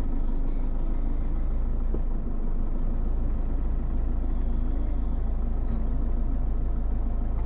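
Steady low rumble of a motor vehicle on the move.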